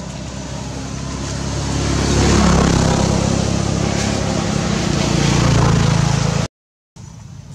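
A motor vehicle's engine running close by, growing louder over the first two seconds and then holding steady, before the sound cuts off abruptly near the end.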